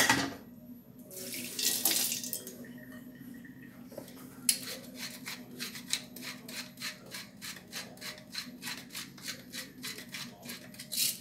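Hand black-pepper grinder being twisted, grinding peppercorns: a short burst of grinding, then from about four seconds in a steady run of short rasping crunches, about four a second. A knock at the very start.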